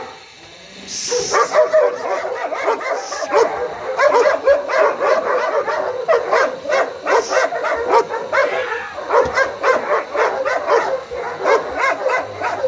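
German Shepherd female barking fast and without pause, several barks a second, from about a second in. She is being provoked with a waved hand and shows her guarding aggression.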